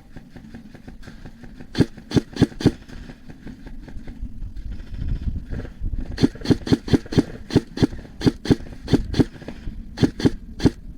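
Airsoft gun firing a string of sharp single shots: a quick group of about four, then a long run at roughly three shots a second, then a few more near the end.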